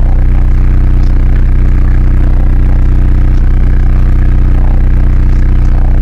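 Sundown subwoofers driven by CT amplifiers in a 1994 Ford Explorer, playing a very loud, sustained deep bass note that holds steady without a break.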